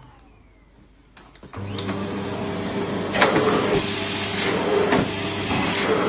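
Bagless cyclone vacuum cleaner running, a steady motor hum with a loud rush of air. It comes in about a second and a half in and cuts off abruptly at the end.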